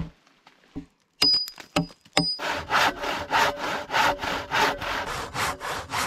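A new coarse-toothed hand saw cutting through a log with the bark still on: quick, even strokes, about four a second, starting about two and a half seconds in. Before the sawing come a few sharp taps, one with a brief ringing tone.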